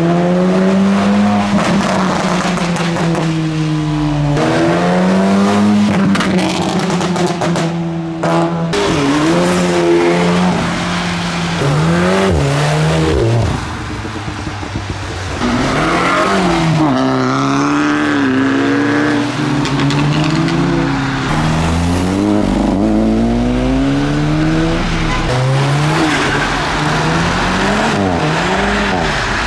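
Modified cars accelerating away one after another on a wet road, each engine revving up and dropping back through gear changes, with tyre noise from the wet surface.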